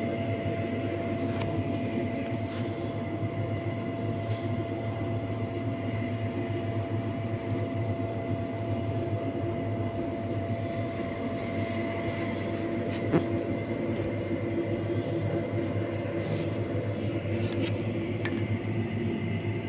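Steady machine hum of a running ductable air-conditioning unit, a constant drone with several fixed tones over a rushing noise; a single sharp click about thirteen seconds in.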